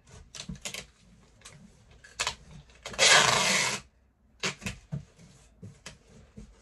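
Packing tape pulled off the roll in one loud tearing rip lasting just under a second, about three seconds in, amid short knocks and rustles of hands handling a cardboard box.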